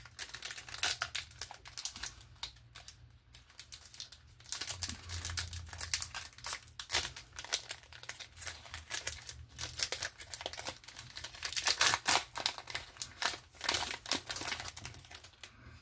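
Foil trading-card booster-pack wrapper crinkling and tearing as it is opened by hand: a steady run of irregular, sharp crackles.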